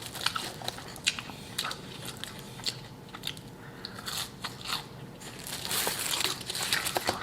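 Close-miked eating: a person biting and chewing food, with many short, sharp crunches and a longer, louder rough stretch about six seconds in.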